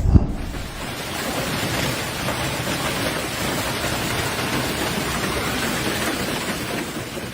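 Steady, dense rush of a storm downpour, with a brief low thump right at the start.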